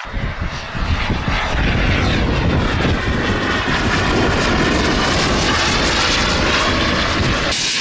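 Miniature jet turbine of a large radio-controlled jet plane in flight, a steady loud rush with a whine whose pitch shifts as the plane passes.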